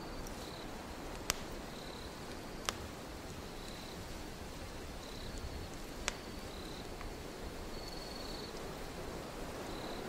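Wood fire crackling, with three sharp pops and a few fainter ones, over a steady low rush of wind. Crickets chirp in short high trills every second or so.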